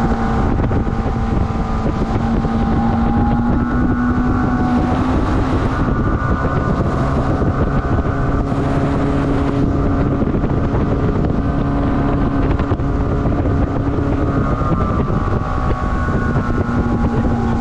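Small motorboat's engine running steadily with the boat under way, its hum holding an even pitch, with wind noise on the microphone.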